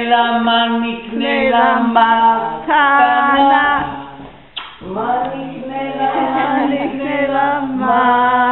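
Several voices singing together unaccompanied, in long held notes, with a short break about four and a half seconds in.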